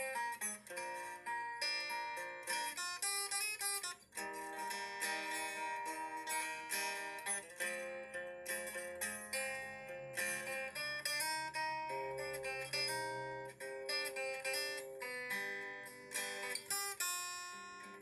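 Background music: a tune of quick plucked string notes, like a picked acoustic guitar, playing without a break.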